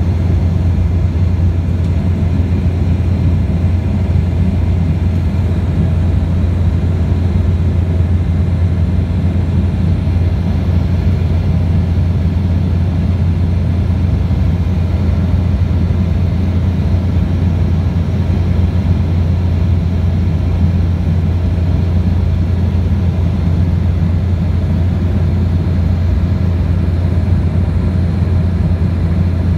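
Steady low drone of a jet airliner in flight, engine and airflow noise heard inside the cabin from a window seat beside the wing-mounted turbofan.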